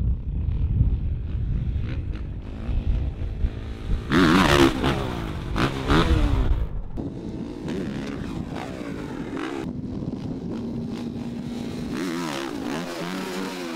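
Motocross bike engine revving, its pitch rising and falling sharply in several quick sweeps as the throttle is worked, with a steadier running engine sound in between.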